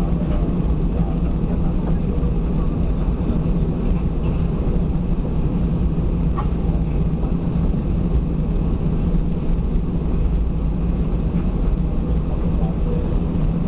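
Airbus A320 cabin noise while taxiing after landing: the jet engines run at low power under a steady rumble with a low hum, heard from a seat over the wing.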